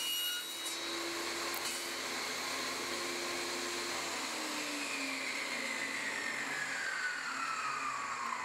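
Table saw running, then switched off about four seconds in; its pitch falls steadily as the blade spins down.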